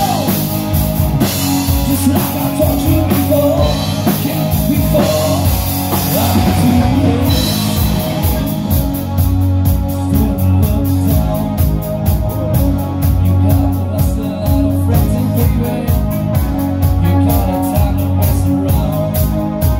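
Live rock band playing: lead vocals over electric guitar, bass guitar and a drum kit. A bright cymbal wash in the first several seconds thins out about eight seconds in, leaving a steady, evenly struck drum beat.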